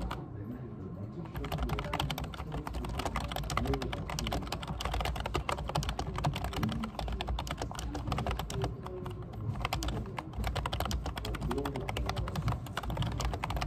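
Fast typing on a computer keyboard: a dense, continuous stream of key clicks that gets busier and louder about a second in.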